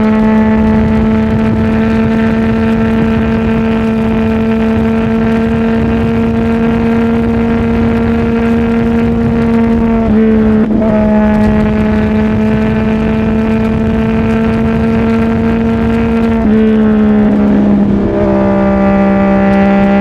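Exhaust of a CFMOTO 675NK's three-cylinder engine, through a titanium full-system exhaust, running at a steady pitch under way. The note breaks briefly about halfway through, then wavers near the end before settling slightly lower.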